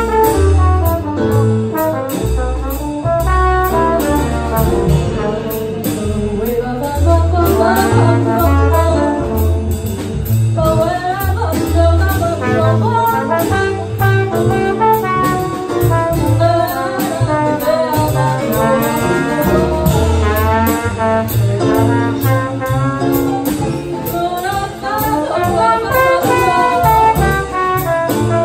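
Small jazz band playing, with the trombone carrying the lead line over piano, double bass and drums keeping time on the cymbals.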